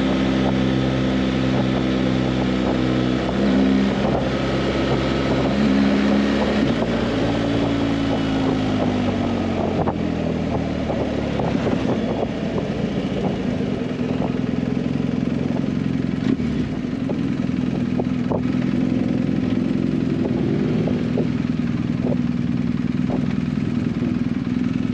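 Motorcycle engine running on the move. Its note rises and falls a few seconds in, then drops and settles to a steady lower pitch for the rest.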